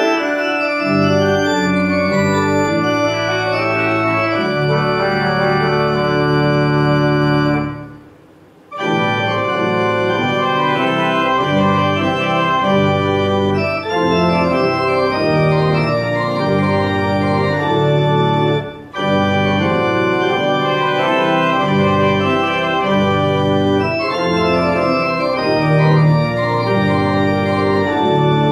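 Church organ played on manuals and pedals: a stately tune in D with full sustained chords over a strong pedal bass. The music breaks off for about a second roughly eight seconds in, with shorter breaks later.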